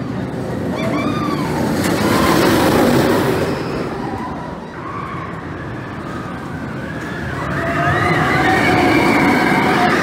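A roller coaster train rushing past twice, each pass a roar that swells and fades, with riders' screams sliding up and down in pitch over it.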